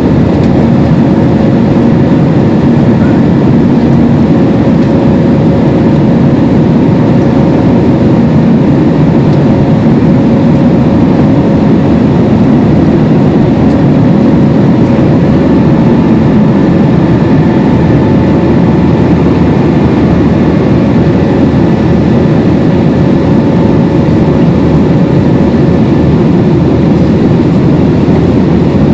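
Loud, steady cabin noise of a jet airliner climbing after takeoff, heard from a seat over the wing: engine drone and rushing air, with a faint steady whine on top.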